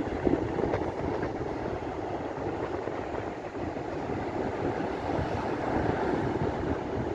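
Wind blowing on the microphone over the steady noise of breaking ocean surf.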